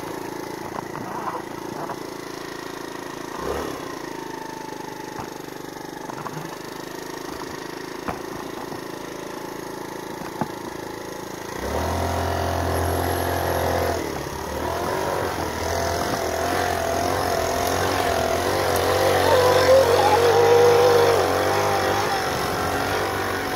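GY6 50cc single-cylinder four-stroke scooter engine running while riding. It is a steady drone at first, then about halfway through it suddenly gets louder and deeper, its pitch wavering up and down with the throttle near the end.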